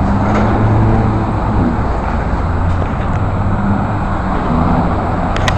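Steady road traffic from cars on the bridge roadway alongside, a continuous rush with a low engine hum. There are a couple of sharp clicks near the end.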